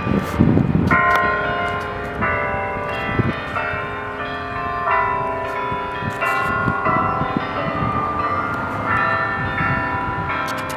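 Church bells playing a tune, with a new note struck about every second, each ringing on under the next. A rush of noise sounds in the first second before the bells come in.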